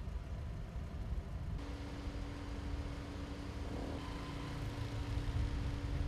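Outdoor road traffic rumble with a steady hum joining about a second and a half in, growing louder near the end as a motorcycle approaches along the street.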